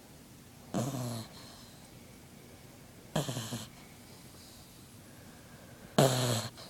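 A Frengle (French bulldog–beagle cross) puppy snoring in its sleep: three short snores, each about half a second long and roughly two and a half seconds apart, the last the loudest.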